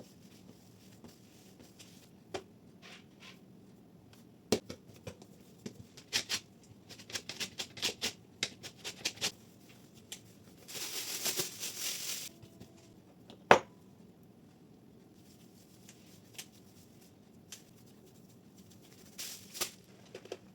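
Kitchen handling noises while butter-cookie dough is worked: scattered light taps and clicks, a run of quick clicks, a rustling burst lasting about a second and a half, and one sharp knock.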